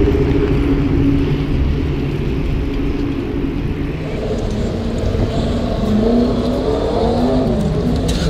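Steady low rumble of street traffic and the moving bike, picked up by a camera on a BMX bike's handlebars. About six seconds in, a vehicle engine's pitch rises and falls.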